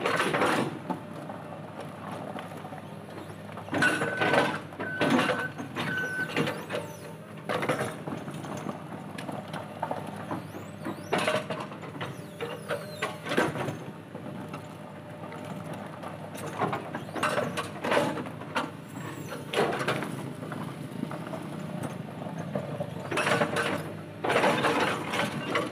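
Hydraulic breaker on a Cat excavator hammering rock in short bursts of rapid blows, with the excavator's diesel engine running steadily underneath. A short high tone sounds three times about four to six seconds in.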